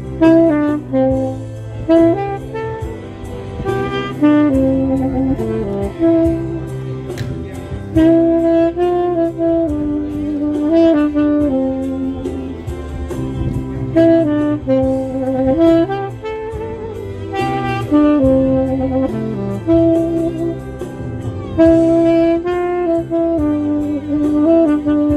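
Saxophone played live, a slow melody in phrases of held notes and short runs. It sounds over an accompaniment with a steady low bass.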